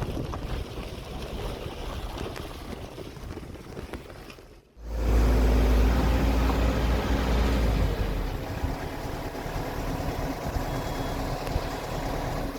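A large engine running with a deep, steady rumble, loudest for about three seconds after it cuts in, then easing. Before it, a stretch of wind and outdoor noise.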